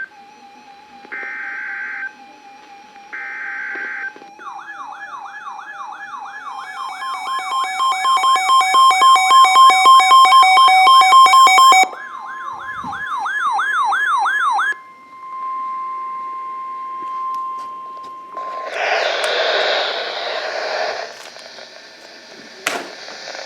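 Weather-radio emergency alert tones: two short beeps, then several warbling siren-like alert tones that pile up and grow loud before cutting off about 12 seconds in, followed by a shorter warble and a steady single-pitch alarm tone lasting a few seconds. Near the end come harsh noisy bursts.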